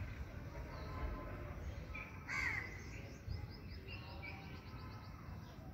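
Bird calls: one louder call about two seconds in, a few short chirps, and a fast run of repeated chattering notes just after, over a low steady background rumble.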